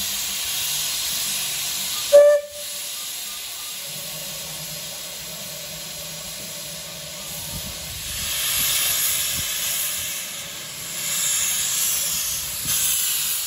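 Small saddle-tank steam locomotive hissing steam, with one very short, sharp whistle toot about two seconds in. As it moves off, louder rushes of steam from the open cylinder drain cocks come twice, the second near the end.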